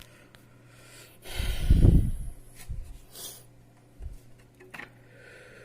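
A loud exhale rushing against the microphone about a second and a half in, followed by a few light clicks and short rustles from handling.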